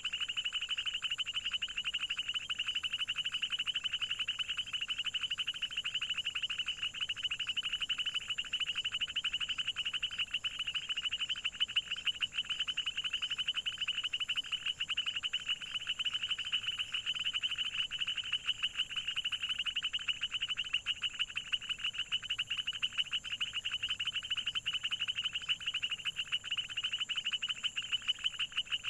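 A dense chorus of frogs calling without a break, many rapid pulsed calls overlapping in a high-pitched band. A steady thin high tone runs above the chorus.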